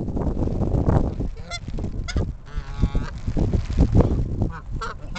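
Canada geese honking: a few short honks about a second and a half and two seconds in, a longer wavering call around three seconds in, and another short honk near the end, over uneven low rumbling noise.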